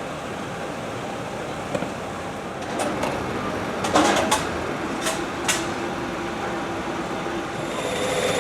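Steady street traffic noise with a few sharp clicks in the middle. Near the end a motor vehicle's engine idling comes in with a steady hum.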